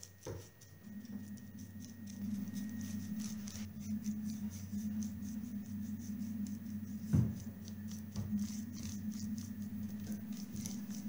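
Paintbrush dabbing acrylic paint onto a carved picture frame: quick repeated bristle strokes, a few a second, with a knock about seven seconds in. A steady low hum runs underneath.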